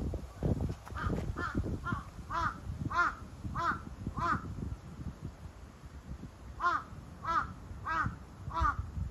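A crow cawing repeatedly: a run of about seven caws roughly half a second apart, a pause of two seconds, then four more near the end, over a low background rumble.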